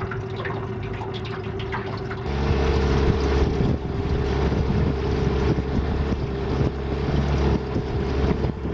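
Boat's outboard motor running steadily as the boat travels, with water and wind noise over it; the sound gets louder and fuller a couple of seconds in.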